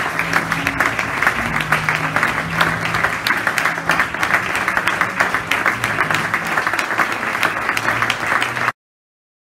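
Audience applauding steadily for a long stretch, cutting off abruptly near the end.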